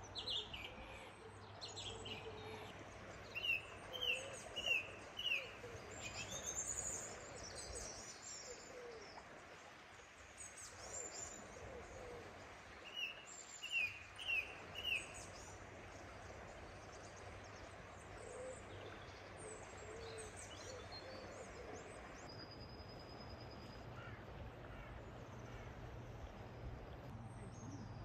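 Birds calling over a steady wash of background noise. The loudest calls are two runs of four or five short, high notes, a few seconds in and again about halfway through, among scattered higher chirps and some lower hoot-like notes.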